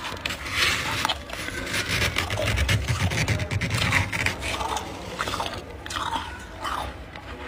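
Close-up chewing of a mouthful of powdery freezer frost: dense, crackly crunching for the first few seconds, thinning to separate crunches near the end.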